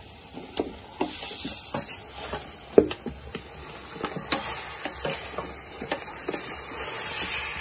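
Wooden spoon stirring chicken pieces in a metal cooking pot, with irregular knocks and scrapes against the pot over a steady hiss from the cooking, the sharpest knock about a third of the way in.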